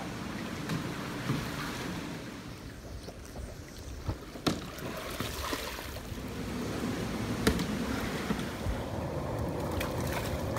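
Water sloshing and splashing around a whitewater kayak as it capsizes and rolls, with several sharp clicks scattered through.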